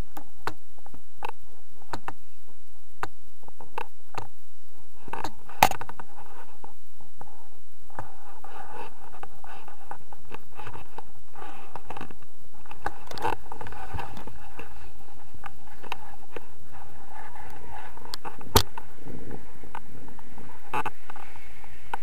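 Wind rushing over the microphone of a pole-mounted action camera on a tandem paraglider during launch and takeoff, with scattered clicks and knocks from the camera mount and harness. Two sharp knocks stand out, about six seconds in and about eighteen seconds in.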